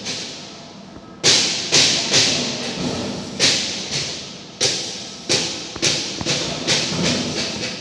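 After about a second of steady noise, a series of sharp bangs, roughly two a second with a pause in the middle, each trailing off in an echo of a large hall.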